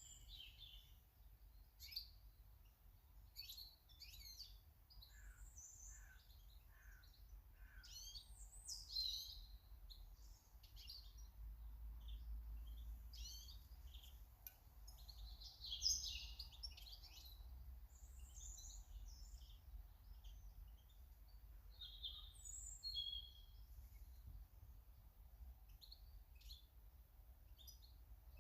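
Wild garden birds chirping and calling, many short high chirps one after another, faint, over a low steady rumble.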